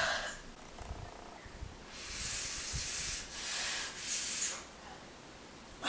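A person hissing out breath three times, one long hiss then two shorter ones, as she reacts to the burn of very spicy noodles.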